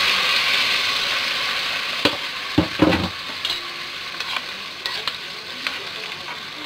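Water sizzling in a hot pot of rice and red lentils toasted in oil, the hiss dying down as the water stops boiling off. A spoon stirs through it, with scattered clicks and knocks against the pot and two dull thumps about two to three seconds in.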